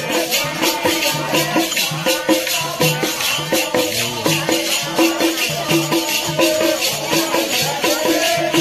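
Live Bundeli Rai folk music: a drum and jingling, rattle-like percussion playing a fast, steady beat.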